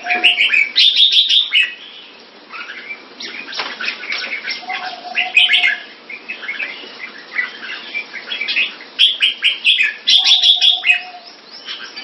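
Red-whiskered bulbul singing: three bouts of quick, bright chirping phrases a few seconds apart, with quieter calls between them.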